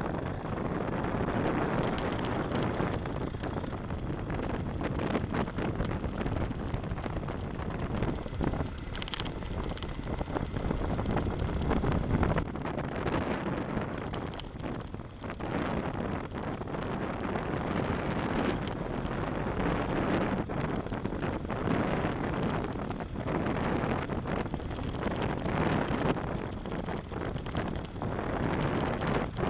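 Adventure motorcycle riding along a gravel track: wind buffeting the bike-mounted microphone over the rumble of the engine and the tyres on loose gravel, rising and falling unevenly.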